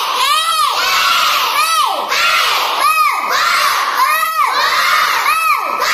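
A group of young children chanting Tamil letters aloud in unison, one loud shouted call after another, each rising and then falling in pitch.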